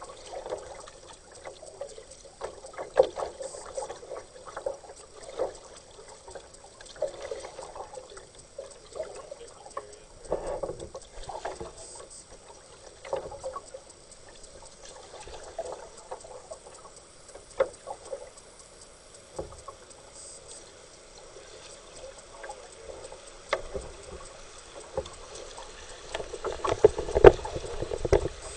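Kayak paddle strokes in river water: irregular splashes and light knocks every second or two, louder near the end.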